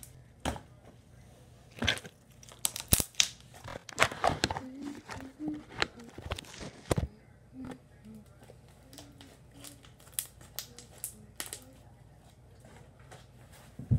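Handling noise from a phone camera being picked up and repositioned: a string of clicks, knocks and rustles, busiest in the first half and sparser afterwards.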